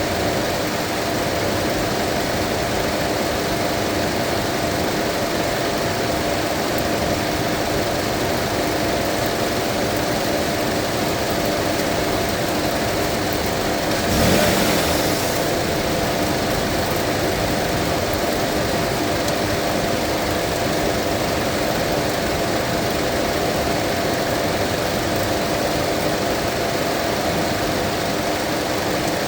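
Mazda 2.5-litre engine idling steadily while its cooling system is burped of air, with one brief louder surge of noise about halfway through.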